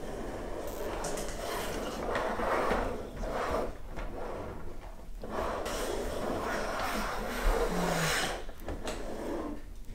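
Plastic toy convertible's wheels rolling across a hard tabletop as the car is pushed back and forth by hand, a rolling rumble that swells and fades with each push.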